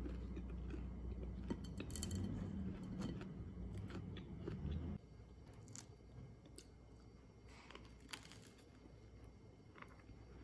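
Faint eating and handling sounds: small crunches and clicks, typical of biting and chewing toasted bagel and of food moved on a ceramic plate. A low background hum stops abruptly about halfway through.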